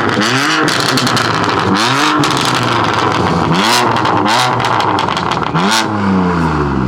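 Straight-piped BMW F82 M4's twin-turbo inline-six being revved hard in a string of rev blips, each rising and falling, with sharp crackles and pops between them. Near the end the revs fall away in one long drop. The sound is very loud.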